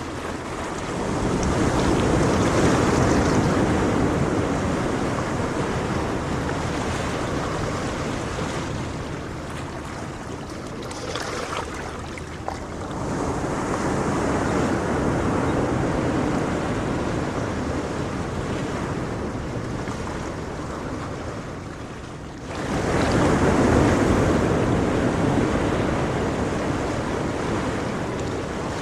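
Ocean surf: waves break and wash up the shore in three swells, about a second in, around halfway, and most abruptly near the end. Each swell fades slowly back into a steady wash of water.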